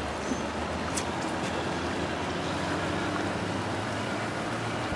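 Boat engine running steadily at slow speed, heard from aboard as a low drone, with water and light wind noise.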